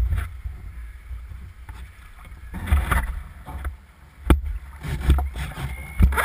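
Lake water sloshing and lapping against the hull of a floating RC seaplane, picked up by a camera mounted in its canopy, with uneven low buffeting and two sharp knocks, one about four seconds in and one near the end.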